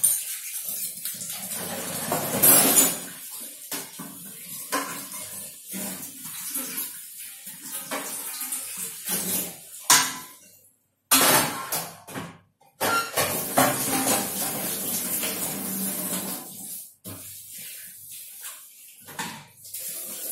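Tap water running into a stainless-steel kitchen sink while dishes are hand-washed under it, with the knock and clatter of utensils against each other and the sink. The water noise breaks off sharply twice around the middle.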